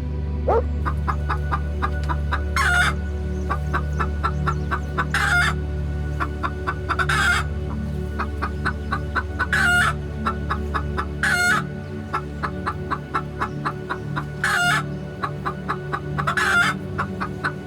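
Chickens clucking in a rapid run of short clucks, with a louder, sharp call breaking in every two to three seconds.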